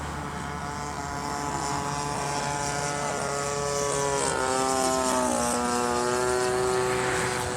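Radio-controlled model airplane flying, its fuel-burning engine and propeller buzzing steadily. The pitch dips and wavers about four seconds in, then settles again.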